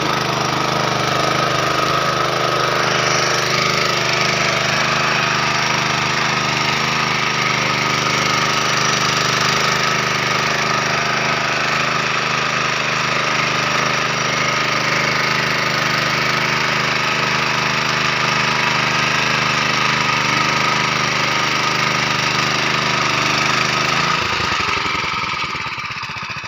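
Honda GX160 5.5 hp single-cylinder four-stroke petrol engine running steadily under load. Near the end its note changes and eases off a little, as if slowing.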